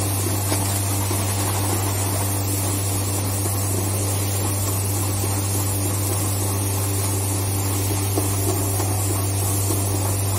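Steady machinery noise from plastics-processing equipment: a constant deep hum with an even hiss over it, unchanging throughout.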